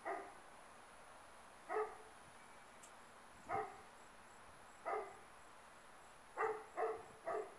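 A dog barking in short single barks every second or two, then three quick barks near the end, over a steady high insect trill.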